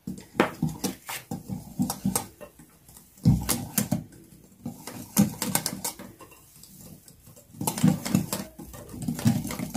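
Hand wire whisk stirring thick cake batter in a glass bowl, its wires clicking and scraping against the glass in quick, irregular strokes as flour is mixed in.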